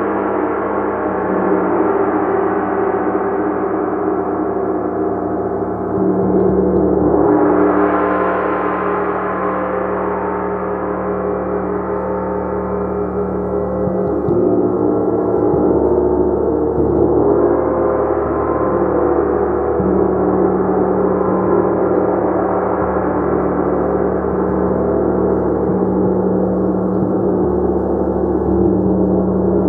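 A gong played continuously in a sound journey: a dense, sustained wash of ringing overtones that swells brighter about seven seconds in and again around seventeen seconds.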